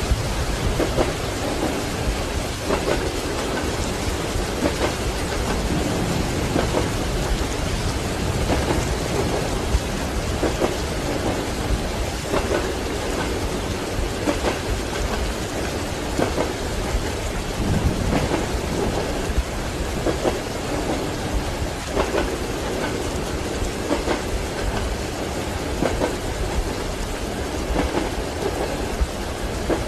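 Steady heavy rain with thunder rumbling, under the rhythmic clack of train wheels over rail joints, recurring about every two seconds.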